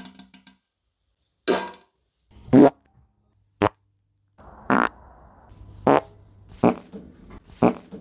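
A string of separate short wet farts, seven of them about a second apart, with a faint low hum between the later ones.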